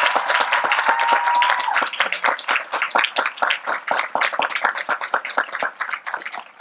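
Audience applauding, the clapping thinning out and fading near the end. A thin steady tone sounds under the clapping for the first second or two.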